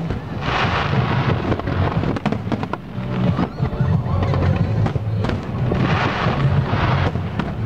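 Aerial fireworks shells bursting with bangs, and two long spells of crackling, about half a second in and again around six seconds in. Music with sustained low notes plays underneath.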